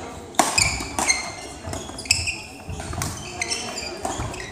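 Court shoes squeaking on a sports hall floor during a badminton rally, many short high squeaks, with sharp racket hits on the shuttlecock; the loudest hit comes about half a second in.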